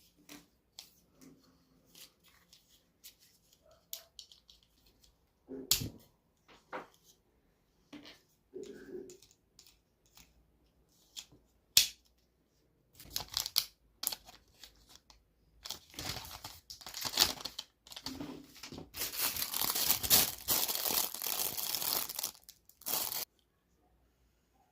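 Toy cap gun's plastic packaging being handled and opened: scattered clicks and taps, one sharp loud click about halfway through, then a long stretch of crinkling and tearing plastic.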